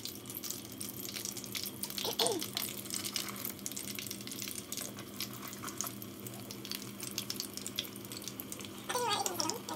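Martabak mini pastries deep-frying in hot oil: a steady, dense crackle and sizzle of bubbling oil, with a low hum underneath. A voice comes in briefly near the end.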